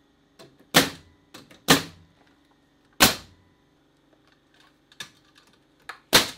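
Nail gun driving nails to tack a header into the door framing: four sharp shots, three in the first three seconds and one near the end.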